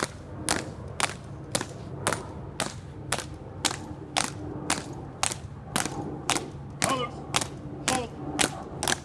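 Marching footsteps of a ceremonial color guard: hard-soled shoes striking stone pavement in unison, a sharp click about twice a second at a steady cadence.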